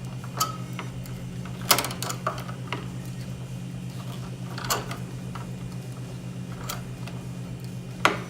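Pliers clicking and clinking on copper wire as the stripped ends are bent into hook loops for an outlet's screw terminals: a few sharp metallic clicks, spaced irregularly, over a steady low hum.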